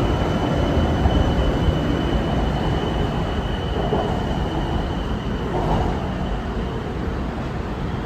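BTS Skytrain EMU-B1 train running between stations, heard inside the car: a steady rumble with a thin high whine that fades out near the end as the noise eases slightly.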